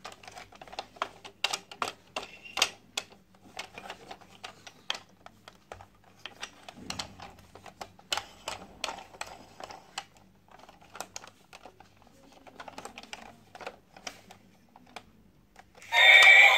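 Irregular clicks and knocks of a hard plastic toy train being handled and turned over in the hands. Near the end the toy is switched on and its loud electronic tune starts suddenly.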